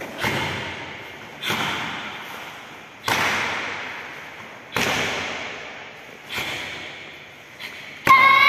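Karate kata Heian Yodan: a sharp snap with each technique, about every second and a half, each one echoing away in the hall. Near the end a loud drawn-out shout starts, the kiai.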